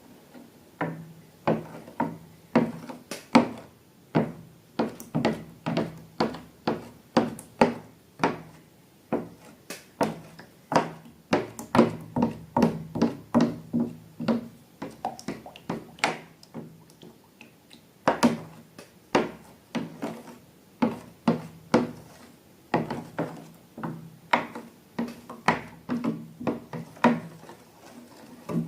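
Slime being squeezed and worked by hand: a rapid, irregular run of sticky clicks and pops, several a second.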